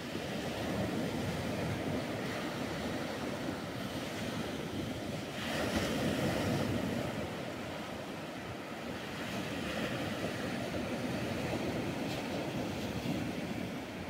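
Black Sea surf: small waves breaking and washing up a sandy beach in a steady rush. It swells louder about halfway through as a bigger wave breaks.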